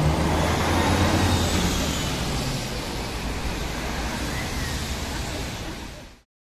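Road traffic: a motor vehicle's engine hum, strongest over the first two seconds, over a steady wash of traffic noise. It fades out quickly near the end.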